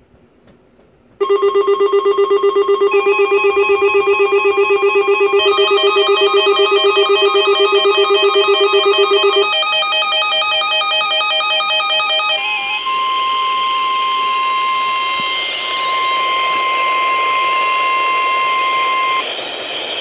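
Several weather radios sounding their EAS alert alarms at once for a child abduction alert: overlapping electronic beeping and warbling tones start suddenly about a second in and drop out one by one at around ten and twelve seconds. Then a single steady high alert tone plays over radio hiss for about six seconds, with a brief dip midway, cutting off just before the end.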